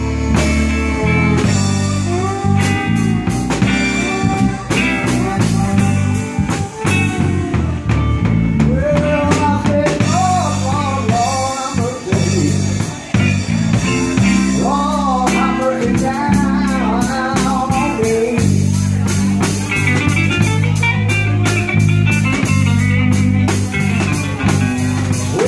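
Live band playing amplified music with electric guitar and a drum kit keeping a steady beat.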